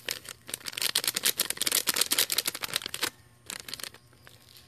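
Plastic packet being crinkled and handled close to the microphone: a dense run of rapid crackles that stops about three seconds in, leaving only a few scattered clicks.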